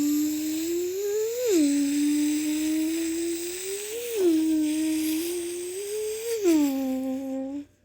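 A person's voice imitating a Lamborghini driving away: one continuous hummed engine note that climbs slowly in pitch and drops back sharply three times, like upshifts through the gears, then stops near the end.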